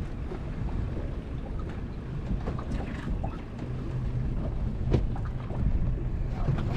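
Wind rumbling on the microphone aboard a small fishing boat at sea, with scattered light clicks and one sharper knock about five seconds in.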